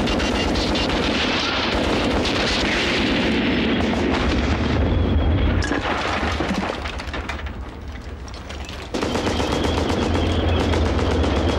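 Heavy water-cooled machine gun firing rapid sustained bursts amid rifle shots and explosions. About nine seconds in it cuts suddenly to the steady low rumble of a tank's engine and tracks, with a thin high whine over it.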